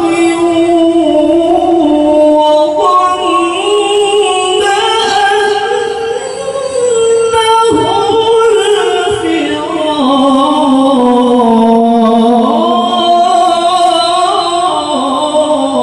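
A man reciting the Qur'an in the melodic tilawah style through a handheld microphone, drawing out one long ornamented phrase whose pitch slowly climbs and falls, with a short break a little before halfway.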